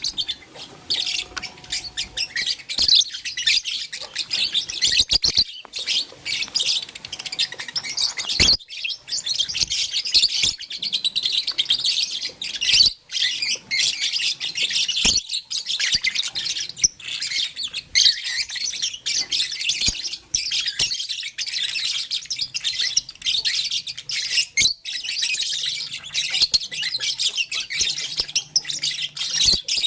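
Lovebirds chirping continuously in rapid, high-pitched twitters, with a few sharp clicks scattered through.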